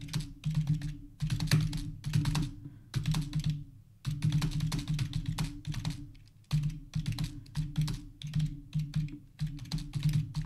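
Typing on a computer keyboard: quick runs of keystrokes, broken by two short pauses.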